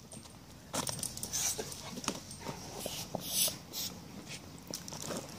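A Belgian shepherd dog mouths and bites at a burst rubber ball on dirt ground, making a string of small clicks, knocks and scrapes that grow louder about a second in.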